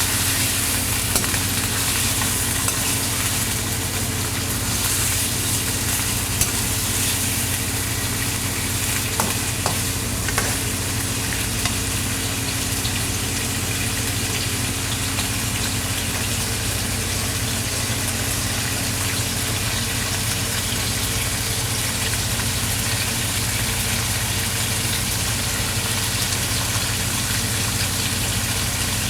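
Food frying in hot oil in a pan, a steady, dense sizzle, over a steady low hum, with a few light clicks about nine to ten seconds in.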